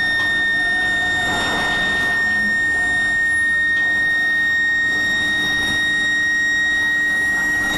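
Induction billet heating furnace whining with one steady high-pitched tone over a constant hiss of plant noise.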